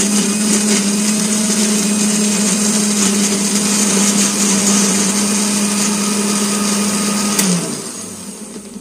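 Electric blender motor running steadily at full speed, grinding ginger, garlic, green chillies, tomato and turmeric into a wet paste. About seven and a half seconds in it is switched off, and the motor winds down and fades away.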